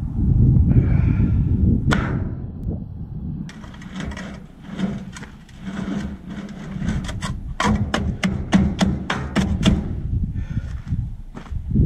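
A shovel jabbing into dirt and gravel at the base of a steel I-beam post, a quick run of sharp scraping strikes from about 7 to 10 seconds in, over a steady low rumble.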